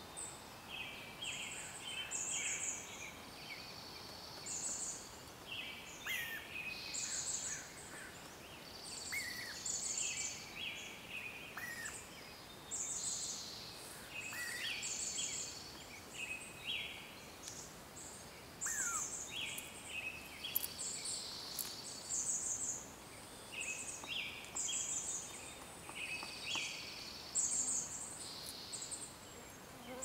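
Several songbirds singing at once: high trilled phrases, buzzy notes and short sliding whistles, overlapping and repeating every second or two over a faint hiss.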